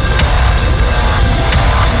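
Background music: an electronic track with sharp drum hits over a steady, loud backing.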